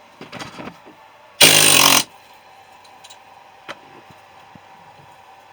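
Pneumatic tool run in one short burst of about half a second, about a second and a half in, working on a compressor's steel shell. Light metal clicks and rattles come before and after it.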